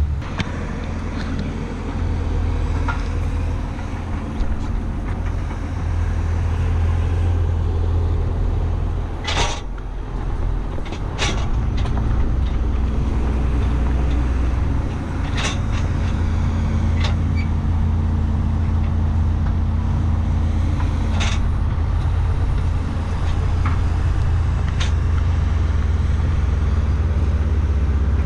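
Tractor engine running with a steady low drone, with a few sharp knocks at scattered moments.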